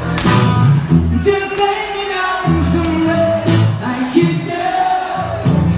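Live band music: a strummed acoustic guitar with a tambourine, and sharp percussive hits recurring through it.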